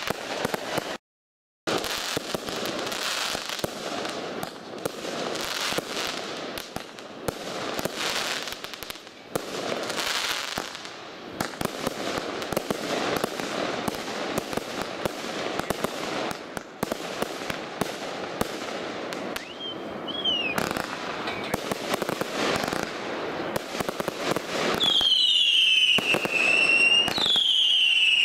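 Aerial fireworks display: a dense run of shell bursts with bangs and crackling. Two high whistles, dropping in pitch, sound near the end.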